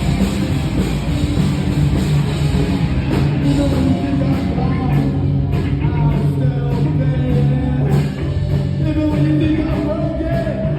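Live rock band playing loudly, with drums, bass and guitar under a singer's vocals that come in more clearly about halfway through, recorded on a phone in the crowd.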